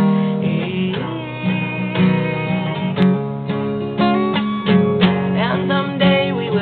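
Acoustic guitar strummed in steady chords, with a hard strum at the start.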